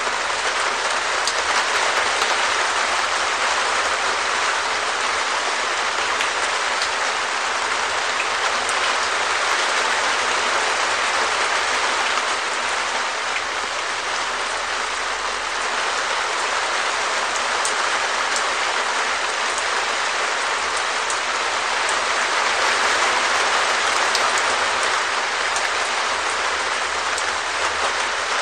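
Steady rain falling on a perspex shed roof: a dense, even hiss of many drops with scattered sharper ticks, swelling slightly now and then.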